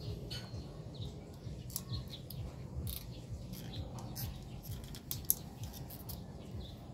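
Scattered small clicks and scrapes of a screwdriver working at the plastic housing of a Yamaha Mio Gravis fuel pump module, prying it apart to reach the fuel filter, with one sharper click about five seconds in. Faint high chirps can be heard behind it.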